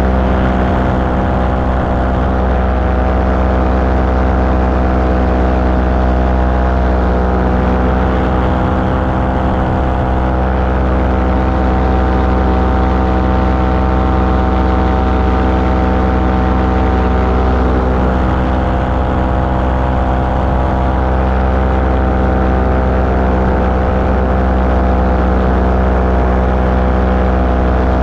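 Engine of a small propeller-driven ultralight aircraft running steadily in flight, a constant drone with no change in pitch.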